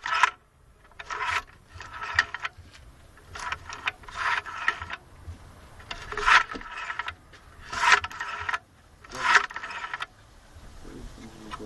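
The flap shaft and linkage of an Opel Z22YH twinport intake manifold are snapped back and forth sharply by hand, giving about eight short scraping clacks at irregular intervals of roughly a second. The flaps are being tested for jamming.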